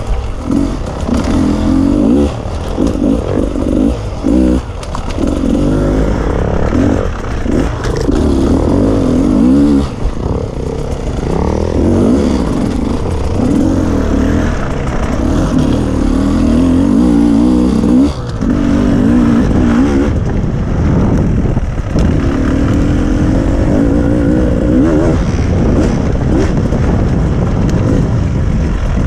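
Beta enduro motorcycle's engine being ridden off-road, the throttle opened and closed again and again so the revs keep rising and falling, with a few short knocks along the way.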